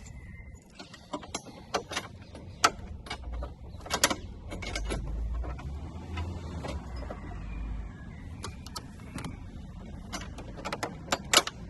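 Irregular metallic clicks and clinks of hand tools and bolts as a strut brace is bolted down onto a car's strut towers, with a dull low rumble for a few seconds in the middle.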